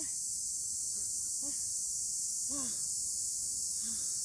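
Steady chorus of insects, a continuous high-pitched drone. Four short, faint pitched calls break through it, roughly a second apart.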